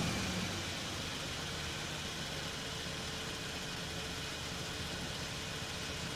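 Ford Mustang engine dropping back from a rev and settling into a steady idle.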